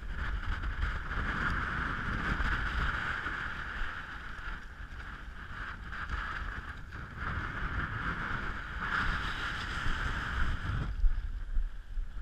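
Strong wind buffeting the microphone, with tent fabric rustling and flapping while a dome tent is pitched; a few sharper flaps near the end.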